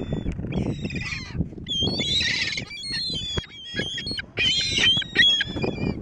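Gulls calling: a quick series of harsh, overlapping cries from several birds.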